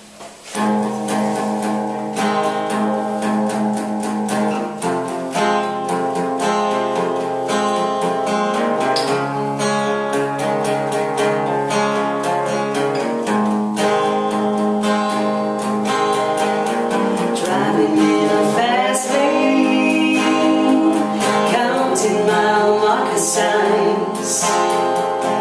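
Acoustic intro to a country-pop song: acoustic guitar playing chords, joined about two thirds of the way through by a sliding melody line.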